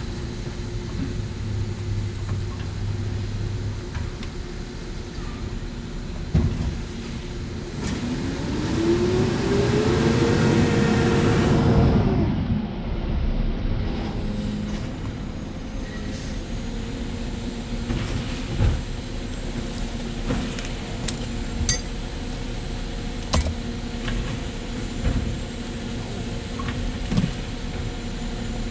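Steady mechanical hum with scattered clicks and knocks. About eight seconds in, a motor spins up with a rising whine, runs steadily for about four seconds and stops suddenly.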